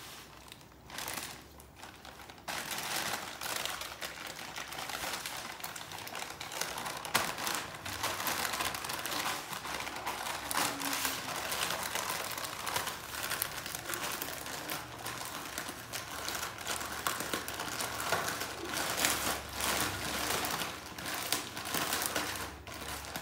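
Plastic snack packet crinkling and rustling as a puppy chews and paws at it: a few separate crinkles, then continuous crackling from about two and a half seconds in.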